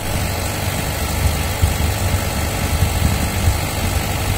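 Heavy diesel engine of construction machinery running steadily with a low rumble, alongside concrete pile pouring.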